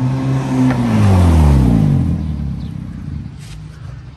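Toyota Aqua hybrid hatchback driving past close by. Its engine note drops in pitch as it goes by, about a second in, then fades away down the street.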